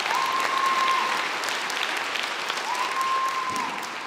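Church congregation applauding in welcome, the clapping thinning out near the end. A steady high tone about a second long sounds twice through it.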